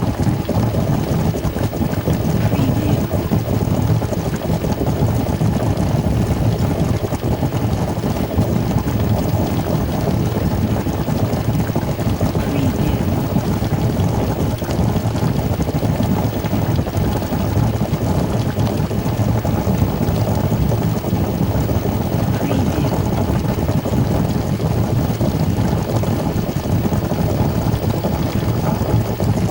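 Food cooking in a pan: a steady, dense crackle and sizzle that sits mostly low, with no pauses.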